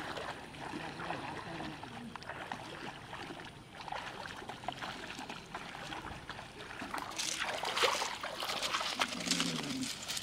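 Water sloshing and splashing around the legs of people wading knee-deep through floodwater, getting louder for the last few seconds.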